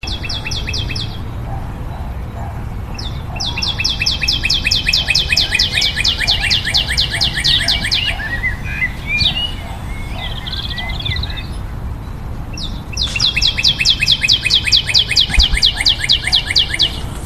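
A bird calling in fast trilled series of repeated high chirps, about eight a second, in three bouts, with a few scattered softer chirps between them, over a steady low outdoor rumble.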